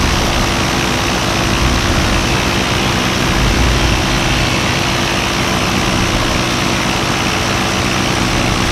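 Paramotor's two-stroke engine and propeller running steadily in flight, a constant drone over a rushing noise.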